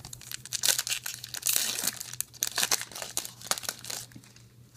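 A card pack's foil wrapper being torn open and crinkled in the hands, a dense run of crackling that dies down about four seconds in.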